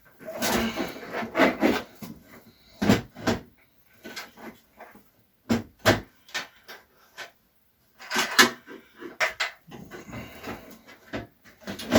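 Irregular clunks, clicks and scrapes of a computer power supply being handled into a desktop case and screwed in, with a short pause a little past the middle.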